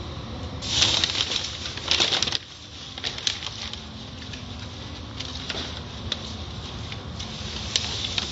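Automatic car wash heard from inside the car: hanging cloth strips and water swishing and slapping across the windshield, loudest in a burst about a second in, then scattered slaps over a low steady hum.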